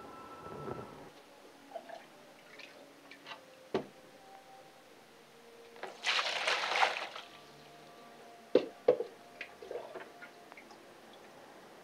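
Aquarium water sloshing and dripping as dirty water is scooped out of a glass tank with a plastic jug, with one loud splash about six seconds in and a few sharp knocks.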